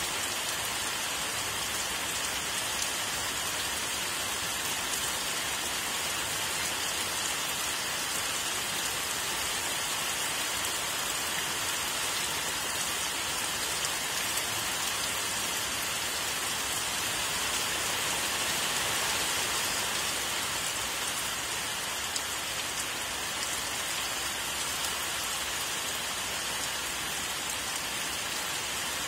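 Steady rain falling, an even hiss that swells slightly about two-thirds of the way through.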